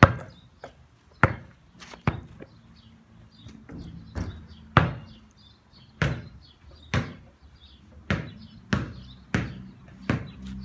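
A basketball hitting and bouncing on a hard surface: about a dozen sharp thuds, roughly half a second to a second apart, the first at the very start the loudest.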